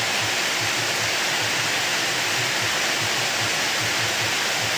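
Heavy rain falling, a steady hiss with no break.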